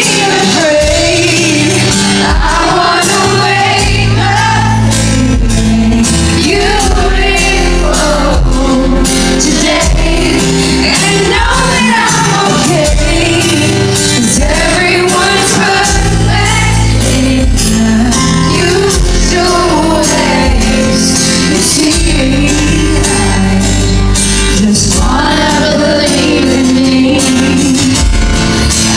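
A live pop band playing loudly in a hall, with a female lead singer carrying the melody over drums and bass.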